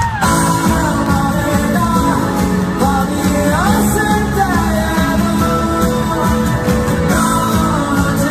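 Live rock song: a male singer sings into a microphone over his own electric guitar, heard loud and steady through the concert hall's sound system.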